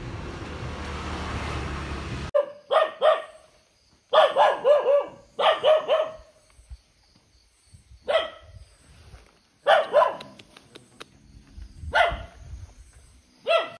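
A dog barking in short sharp barks, often two to four in quick succession, with pauses between the groups. Before the barking starts, about two seconds of steady background noise are heard.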